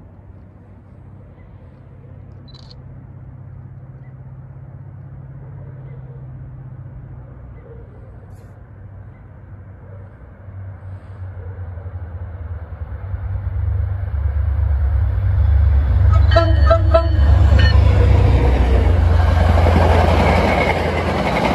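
MBTA train approaching and passing close by: a low rumble builds steadily louder over several seconds. A few short horn toots come about two thirds of the way in, then the rushing noise of the cars going by.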